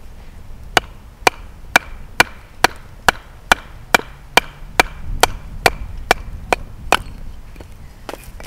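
Hatchet being batoned to split a short log: a wooden club knocks on the back of the hatchet head about fifteen times, roughly two strikes a second, driving the blade down through the wood.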